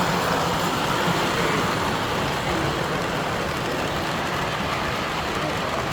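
Steady, even background din with no distinct event, like the crowd noise of a busy exhibition hall.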